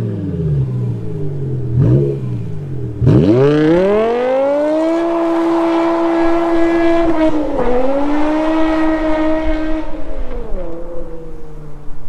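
BMW performance car engine and exhaust pulling hard under load. It gives two quick rev rises in the first couple of seconds, then about three seconds in climbs fast to a high note and holds it. The pitch dips briefly partway through and drops away to a lower note near the end.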